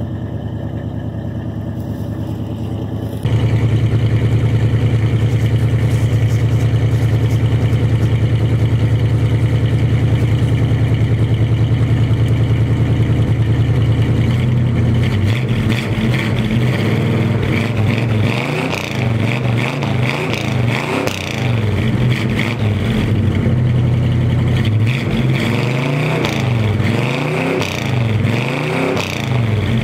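1978 Chevy pickup's V8 engine running after a cold start: a steady idle, louder after about three seconds, then from about halfway on revved repeatedly in short blips that rise and fall in pitch.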